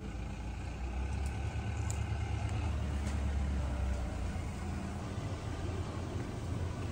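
Steady low rumble of a running engine, like a vehicle idling, with a few faint clicks about a second and two seconds in.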